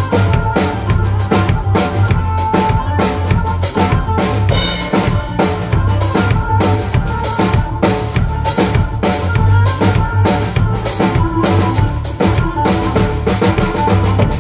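PDP acoustic drum kit played in a steady groove, with bass drum, snare and cymbal strikes, over the pitched music of a song.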